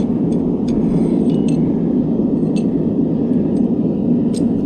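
Gas forge burner running with a steady roar while the steel reheats, with a few light metallic clinks.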